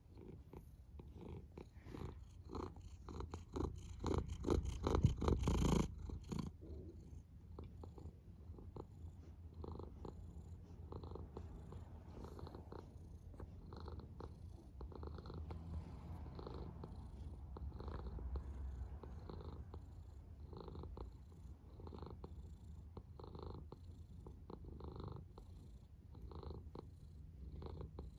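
Domestic cat purring close to the microphone, the purr swelling and fading with each breath about once a second. Over the first six seconds a louder, hissier noise lies over it and cuts off suddenly.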